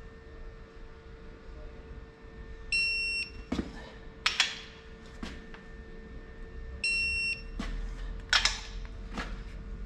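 Snap-on digital torque wrench beeping twice, each a half-second tone, as the ARP main-stud nuts reach the set 80 ft-lb. Sharp metallic clicks and knocks from the wrench and socket on the nuts come between the beeps.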